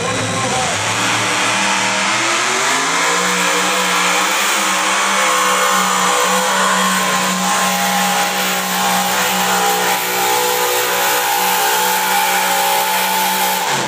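A pulling vehicle's engine at full throttle during a pull. It climbs in revs over about two seconds, then holds steady at high revs.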